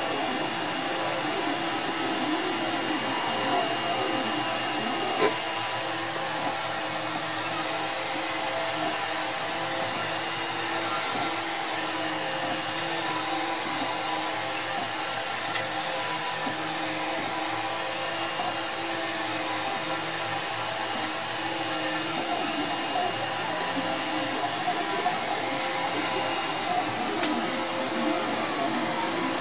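3D printer printing: a steady whir of fans and motors, with the stepper motors' tones shifting up and down in pitch as the print head moves, and one sharp click about five seconds in.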